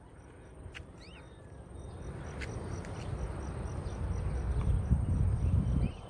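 Wind buffeting the phone's microphone: a low rumble that builds steadily and drops away just before the end. Under it runs a steady faint high buzz, with a short faint chirp about a second in.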